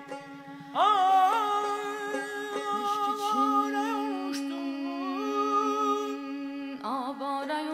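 Azerbaijani mugham music: an ornamented melodic line with wavering, quavering turns over a steady held drone. The melody enters loudly about a second in, and a new phrase begins near the end.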